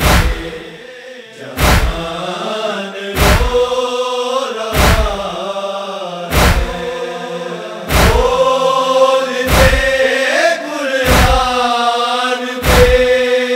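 Group of men chanting a Shia noha lament together in long held lines, over a deep thud about every one and a half seconds that keeps the beat. The voices swell louder about two-thirds of the way through.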